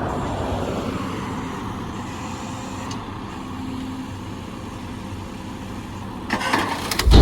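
Truck engine running steadily; near the end, a burst of cracking is followed by a heavy thud.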